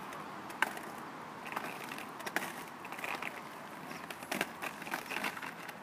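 Inline skate wheels rolling over rough asphalt, a steady rolling noise broken by several sharp clacks as the skates knock and scrape on the pavement.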